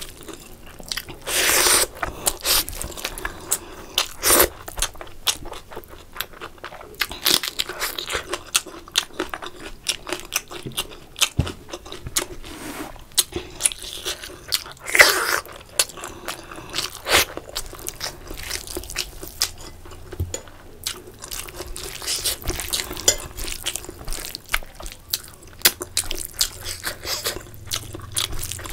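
Close-miked eating: chewing and wet mouth sounds of rice and chicken curry eaten by hand, with frequent sharp clicks and a few louder bites.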